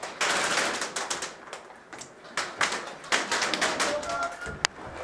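Airsoft guns firing: a run of rapid, irregular sharp clicks and snaps of shots and BB hits, thickest in the first second, with a single sharp crack near the end.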